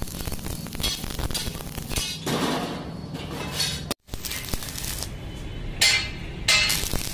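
Stick (arc) welding: the electrode's arc crackling in several stretches of a second or so as a tower bolt is tacked onto a steel gate frame, over a steady low hum. The sound cuts out abruptly for a moment about four seconds in.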